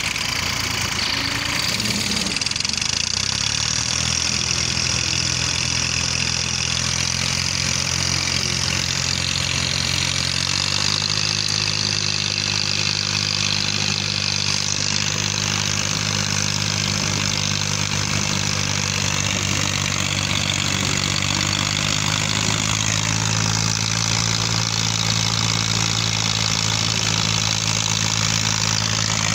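Farm tractor's diesel engine running continuously under load as a rear wheel digs into soft ploughed soil. It steps up to a higher steady speed about ten seconds in and holds there.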